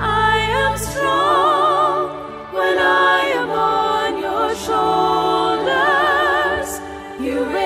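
Background music: singing voices holding long notes with a wavering vibrato, phrase after phrase.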